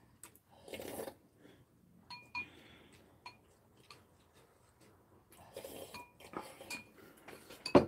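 Metal spoon and chopsticks clinking lightly against ceramic bowls as two people eat ramyun, with two spells of slurping noodles and broth. A sharp knock near the end is the loudest sound.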